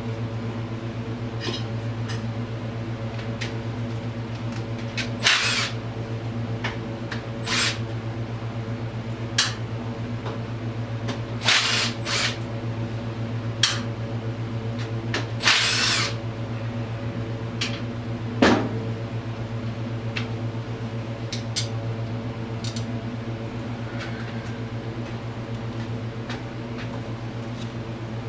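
Steady electric hum of a fan motor, with a handful of short scraping and clinking bursts from hand tools being handled at the engine, the longest lasting about a second, and one sharp knock about two-thirds of the way in.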